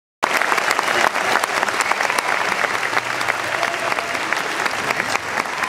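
Concert audience applauding, a dense, steady clapping from a large crowd.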